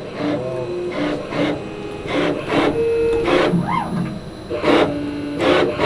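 Home-built CNC spline-shaping machine cutting the splines of a front drive shaft: the tool makes repeated short scraping strokes along the shaft, each taking off a few hundredths of a millimetre. Between strokes the stepper motors hum in steady tones.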